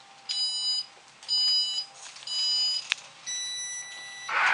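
Electronic race-start countdown from the slot-car timing system: three short beeps about a second apart, then one long lower-pitched start tone. About four seconds in, a loud rush of noise begins as the slot cars set off.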